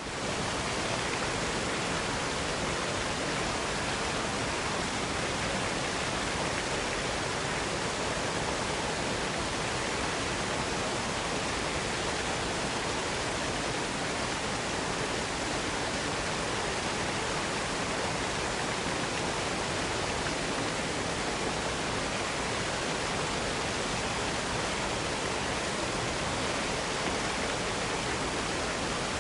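Waterfall: a steady, even rush of falling water that fades in at the very start.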